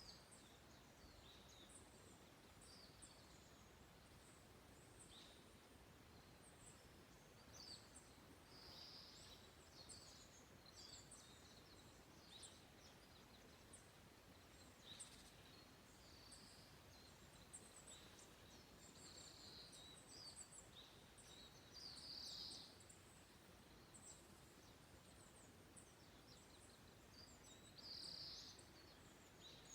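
Wild songbirds calling faintly in woodland: many short, high chirps and trills overlapping throughout, with a few louder calls about nine seconds in, around twenty-two seconds and near the end.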